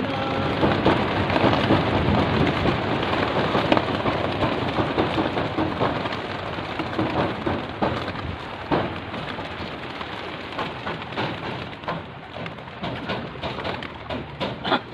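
A large flock of racing pigeons taking off together from crates, a dense clatter of wingbeats. It is loudest in the first half and fades as the birds fly off.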